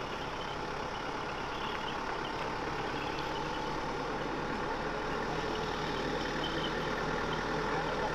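Engine of an open off-road jeep running at a crawl at walking pace, a steady low hum that grows slightly louder as the vehicle approaches.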